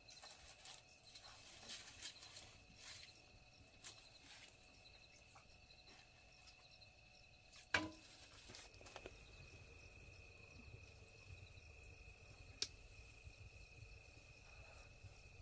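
Quiet night ambience with a faint, steady high-pitched insect trill that sets in about halfway through, and a couple of sharp clicks.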